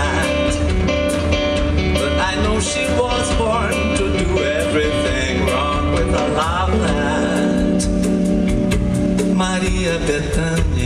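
Live band music: two electric guitars and a drum kit playing a steady groove in a passage with no sung words.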